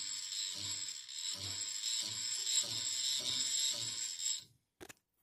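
Small electric power feed motor driving a lathe tailstock quill through its screw: a steady whine with a regular low knock about every 0.6 seconds, stopping abruptly about four and a half seconds in, followed by a single click.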